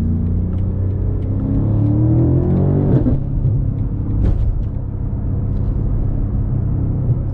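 BMW M5 Competition's twin-turbo V8 pulling under throttle, its pitch rising for about two seconds and then dropping abruptly about three seconds in as the revs fall. A single sharp crack follows about a second later, over a steady low engine drone.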